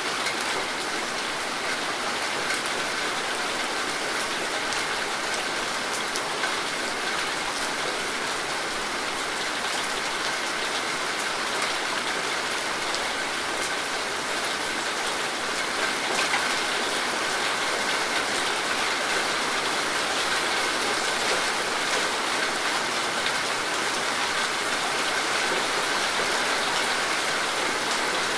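Steady rain falling: a dense, even hiss with the fine patter of individual drops, a little louder in the second half.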